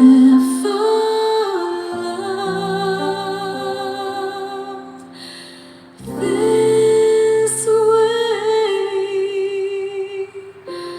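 A female-sung pop ballad with its backing track, with long held notes that waver. The music dips around five seconds in, then swells back loud at about six seconds.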